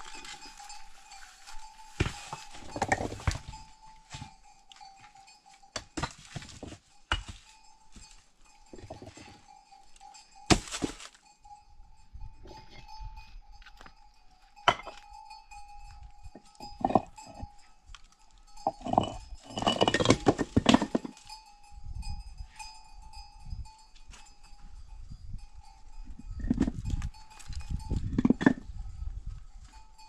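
Sheep and goats bleating now and then, with scattered clinks and knocks between the calls.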